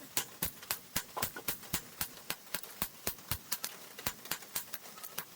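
Blacksmith's hammer striking rebar steel as a knife is forged, in a steady run of sharp metallic blows of about four a second.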